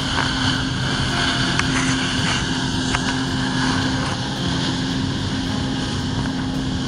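Jet ski engine running steadily under load, pumping water up the hose to a flyboard, with a hiss of water jets and spray. The drone holds an even pitch throughout.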